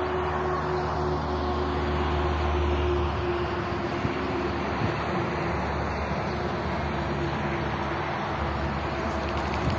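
An engine running with a steady low hum.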